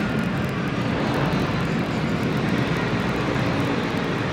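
Steady background din of a large indoor exhibition hall: an even, continuous rumble and hiss with no distinct events.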